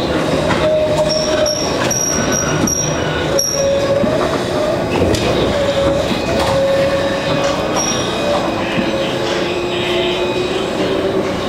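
Alstom Citadis 302 low-floor tram running along its track, heard from inside the front cab: steady motor and rolling noise with a wavering hum. Several short high squeals come between about one and three and a half seconds in.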